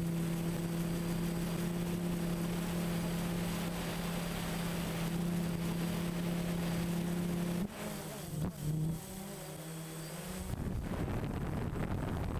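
DJI Phantom FC40 quadcopter's four electric motors and propellers droning in flight, a steady hum heard from the camera on board. About eight seconds in, the hum drops in pitch and wavers, with a few sharp clicks. A couple of seconds later it gives way to a rough noise of wind on the microphone.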